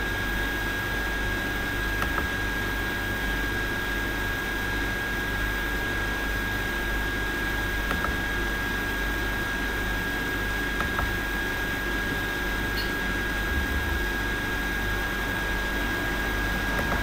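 Steady background noise, like a fan or air conditioner, with a constant thin high whine, and a few faint clicks.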